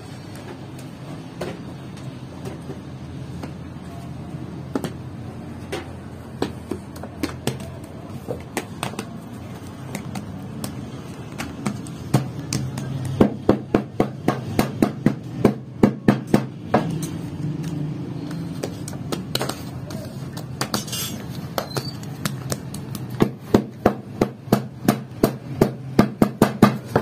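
Wooden bread stamp knocked rapidly onto a round of dough on a steel dome griddle, about four knocks a second, in two runs of a few seconds each. Before them come softer, scattered pats of dough being spread out by hand.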